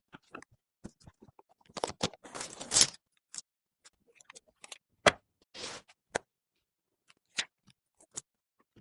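A string of small clicks, taps and short scrapes from PC parts being handled and fitted during assembly, with a longer scrape about two to three seconds in and a sharp click about five seconds in.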